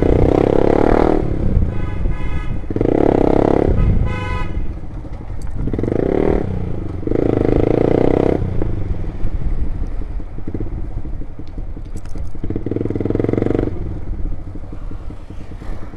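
Loud-exhaust motorcycle being ridden, its engine swelling in several throttle bursts of about a second each between steadier running.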